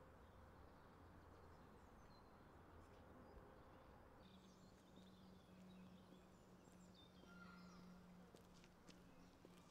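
Near silence: faint outdoor ambience with a low steady hum, and faint bird chirps from about halfway through.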